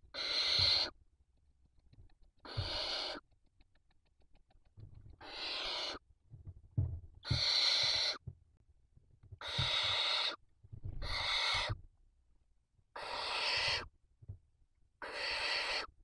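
Barn owl nestlings giving rasping, hissing 'snore' calls, the food-begging call of barn owl chicks: eight calls, each under a second long, about every two seconds. Soft knocks and scuffles come from the chicks moving on the nest floor between the calls.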